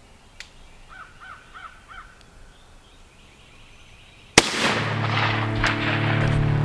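A crow caws four times in quick succession over quiet woods. A few seconds later a single sharp shotgun shot rings out, and music starts right after it.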